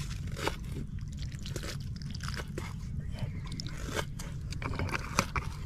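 People eating a meal: scattered short clicks, scrapes and chewing over a steady low rumble.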